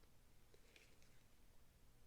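Near silence: room tone, with a very faint brief rustle a little under a second in.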